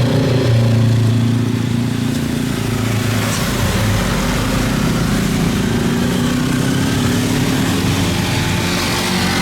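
Jet airliner engines running, a steady low drone with a few tones that slowly shift in pitch and a faint rising whine near the end.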